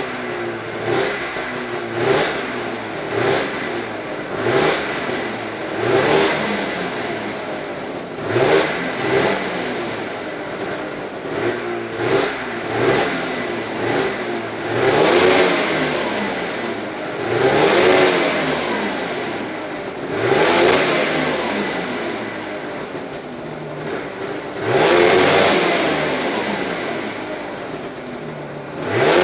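2004 Arctic Cat Sno Pro 440 race snowmobile's two-stroke engine being revved in throttle blips. For the first dozen seconds it gives short blips about once a second. After that come longer, higher revs a few seconds apart, and between them it drops back to a ragged idle.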